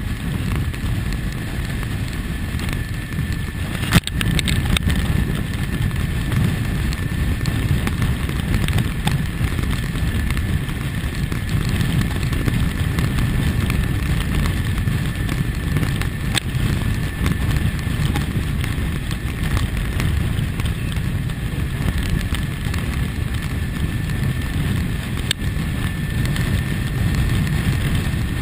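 A 2001 Kawasaki ZX-6R's inline-four engine running at a steady cruise, heavily mixed with wind rushing over the microphone. There is a single sharp knock about four seconds in.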